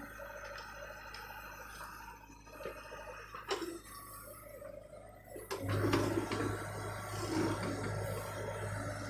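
John Deere excavator running with a steady mechanical hum and a couple of sharp knocks, growing louder about six seconds in.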